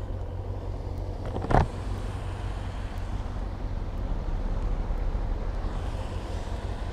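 Kawasaki ZX-6R motorcycle under way, its engine running steadily under wind noise on the rider's microphone. There is one brief louder sound about a second and a half in.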